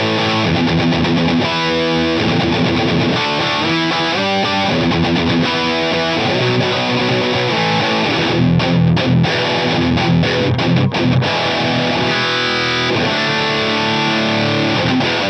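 Distorted electric guitar riff from an Ernie Ball Music Man JP6 through the overdriven channel of a Blackstar HT20 head into a Marshall 2x12 cabinet, compressed by a Donner Ultimate Compressor pedal: more attack, with all the strings ringing out. A run of short, clipped chords comes a little past halfway, and the playing cuts off sharply at the end.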